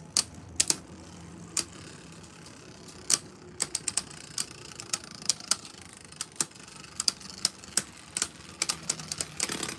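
Two Beyblade Burst tops, Hazard Kerbeus and Vise Leopard, spinning in a plastic Beyblade stadium with a steady whir, struck through by sharp clicks each time they clash. The clashes are sparse at first and come thick and fast from about a third of the way in.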